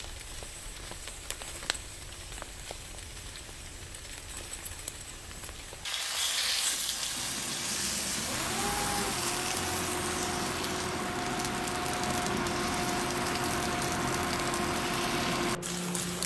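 Sizzling like food frying on a hot griddle, quieter with a few clicks at first, then louder and steady about six seconds in. A steady hum joins it a couple of seconds later.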